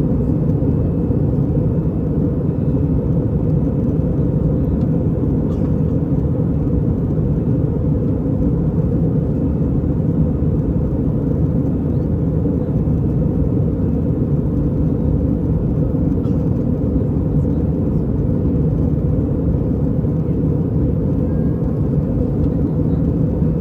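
Steady Airbus A320 cabin noise: a constant low rumble of engines and passing air, mostly in the bass, unchanging in level.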